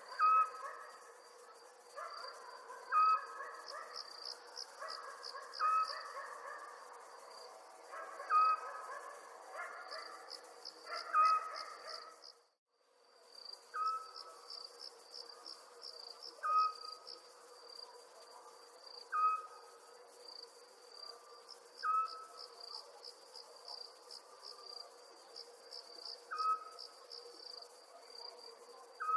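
Crickets chirping steadily in a night soundscape, with a short call repeating about every three seconds. The sound cuts out completely for about half a second roughly twelve seconds in.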